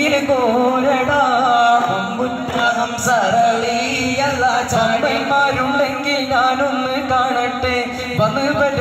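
Daf muttu: a troupe of daf frame drums beaten together in rhythm, under a voice singing a devotional song with a wavering, ornamented melody.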